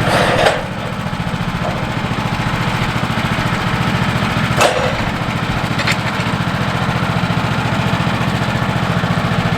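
Woodland Mills HM126 sawmill's engine running steadily at constant speed, with a few sharp knocks, the loudest about half a second in and another near the middle.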